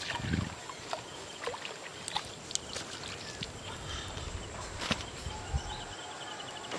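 A short water splash about a third of a second in as a hooked fish is pulled out of a pond on a long hand-held fishing pole. After it come scattered light clicks and knocks as the pole is swung up and the fish is landed on the bank.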